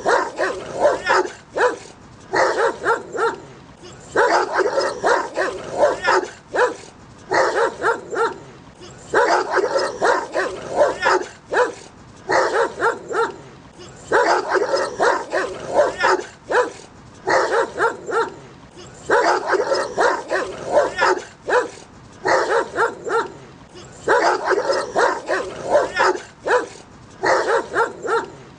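Dogs barking aggressively at each other in rapid volleys of sharp barks, separated by short pauses of about half a second.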